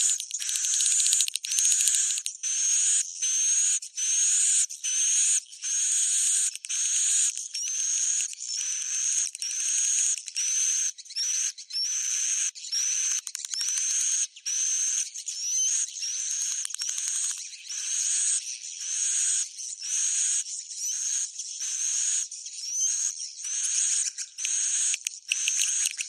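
Recorded swiftlet roosting call ('suara inap'), a lure sound played in swiftlet houses to make the birds settle and stay: a high twittering chirp with a rising whistle, repeating about every two-thirds of a second, with no low end at all.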